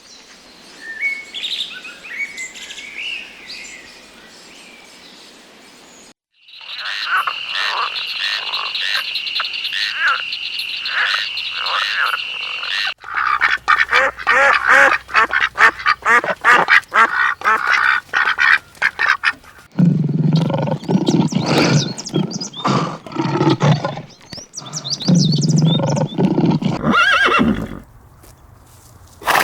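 A run of short animal-call recordings cut one after another, each lasting about six or seven seconds: bird chirps, then a steady high peeping, then dense rapid calling, then lower-pitched calls.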